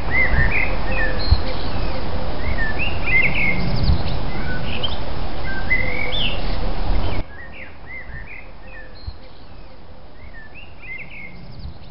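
Small birds chirping and twittering repeatedly. For the first seven seconds a loud low noise sits under them, then drops away abruptly, leaving the chirps over a quieter background.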